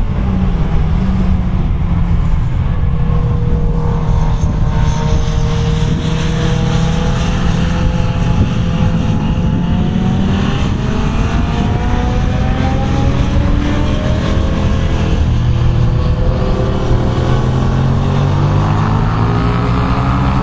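A group of sport motorcycles on a road-racing track, several engines revving up and down through the gears at once. Their pitches rise and fall across one another over a steady rumble.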